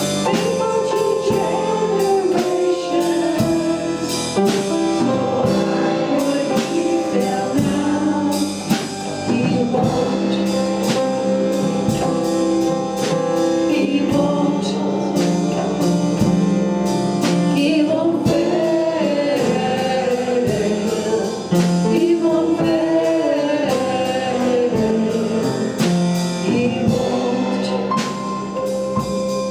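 Worship song with several voices singing over a band, with a steady drum beat throughout.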